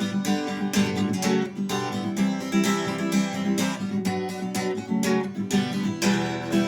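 Acoustic guitar strummed in a steady, quick rhythm of chords, with a final strum near the end left ringing.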